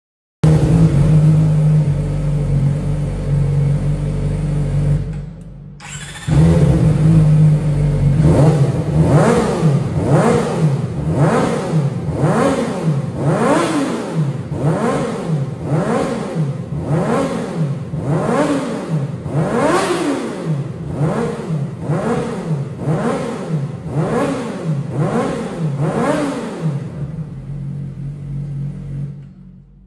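CFMoto 500SR S motorcycle engine with a test exhaust, idling and then revved in a long series of quick throttle blips, about one every second and a half, each rising and falling in pitch, before settling back to idle. The exhaust note sounds deeper and less harsh.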